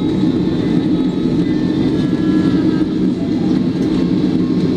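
Airbus A330 taxiing, heard from inside the passenger cabin: the engines and airframe make a steady low rumble, with a few faint steady tones above it.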